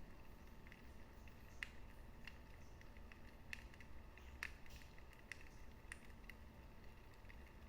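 Wood fire in a fireplace crackling: irregular sharp pops and snaps over a low, steady rumble of the burning fire.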